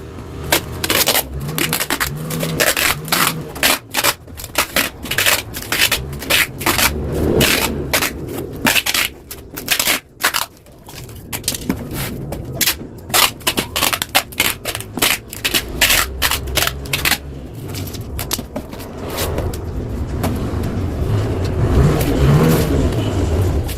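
Yamaha RX-King two-stroke engine running through a reworked exhaust, giving irregular sharp crackling pops over a low drone, with a rev that swells near the end.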